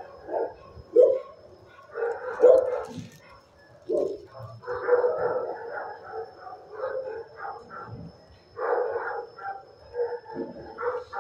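Shelter dogs barking in the kennel block: short, irregular barks, some overlapping, through the whole stretch.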